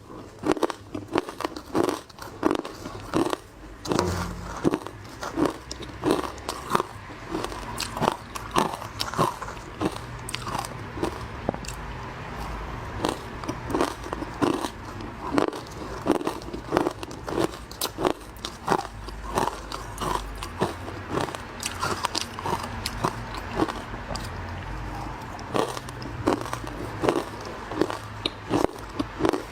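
Someone biting and chewing frozen matcha ice: rapid, irregular crunches, several a second, close to the microphone.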